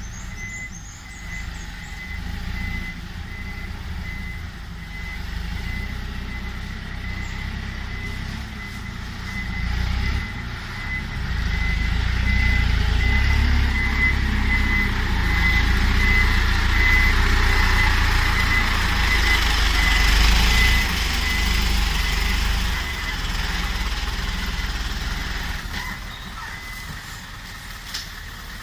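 Loaded Isuzu six-wheel dump truck reversing: its high reversing beeper repeats steadily over the low diesel engine rumble. The engine gets louder through the middle and then eases, and the beeping stops a few seconds before the end.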